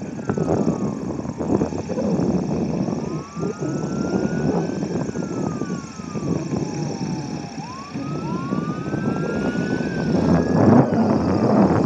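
Pitts Model 12 biplane's engine and propeller running at taxi, with gusts of wind buffeting the microphone. A wailing tone rises and falls several times over it.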